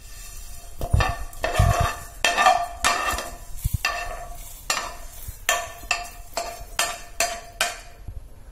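Roasted coriander and cumin seeds being scraped out of a non-stick frying pan into a steel mixer-grinder jar with a steel spoon: repeated metal scrapes and clinks, about two a second, with the pan and jar ringing.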